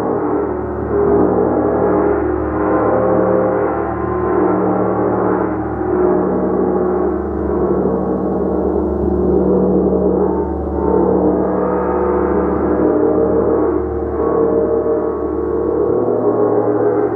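Gong played continuously: a dense, sustained wash of many overlapping ringing tones that swells and eases in slow waves every couple of seconds.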